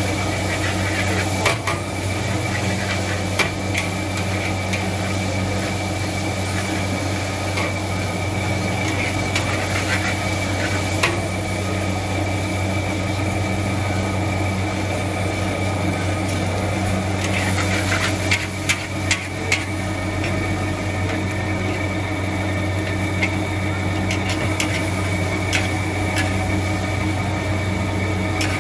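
Stir-frying noodles in a wok over a hawker-stall gas burner: a steady burner and extraction-fan roar, with a metal spatula scraping and now and then clanking against the wok, including a quick run of clanks a little past the middle.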